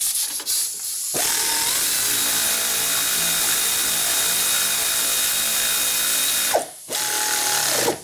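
Pneumatic air ratchet running down the mounting bolts of a front wheel hub bearing assembly. A brief burst comes first, then a long steady run of about five seconds, then a short final run near the end.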